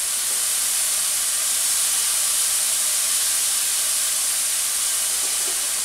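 Tofu cubes frying in hot olive oil in a pan: a steady sizzle.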